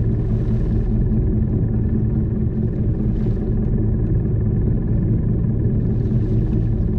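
Wooden fishing boat's engine running steadily, a low even drone.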